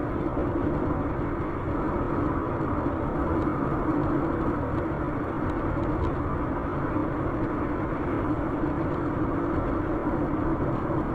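Steady road and engine noise heard inside a car's cabin as it drives along a highway, picked up by a dashcam.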